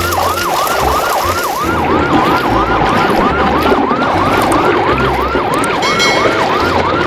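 Electronic siren in fast yelp mode, its pitch sweeping down and up about three to four times a second, over low thumps.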